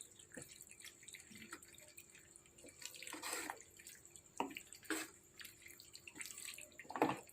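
Macaroni in a thick tomato-and-mayo sauce simmering in a pan: faint, irregular bubbles plopping and popping, with a few louder pops.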